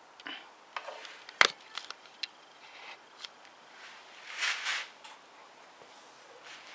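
Scattered clicks and knocks of hands working on motorcycle parts, with one sharp knock about a second and a half in and a short rustle a little past the middle.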